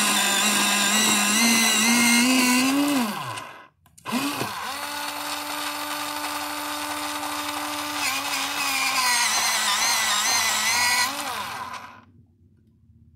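X-ACTO Mighty Mite electric pencil sharpener's motor whirring as it sharpens a pencil, in two runs. The first stops about three and a half seconds in. The second runs about eight seconds, its pitch dropping a little partway through, and winds down near the end.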